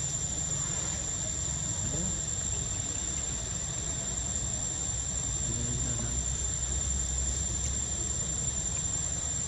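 Steady high-pitched insect drone over a low rumble, with a couple of faint short squeaks, one about two seconds in and another around six seconds in.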